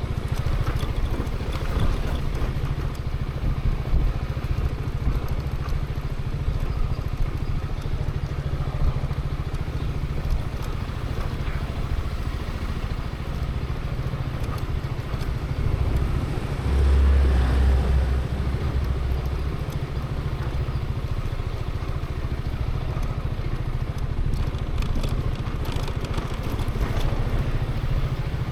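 Zontes 350E's single-cylinder engine running at low speed, with a louder low rumble for a second or so past the middle.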